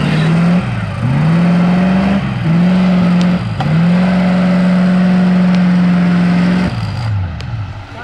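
Off-road 4x4's engine revving hard in repeated bursts as it works through deep mud. The revs dip and climb several times, are held high for about three seconds, then drop away and ease off near the end.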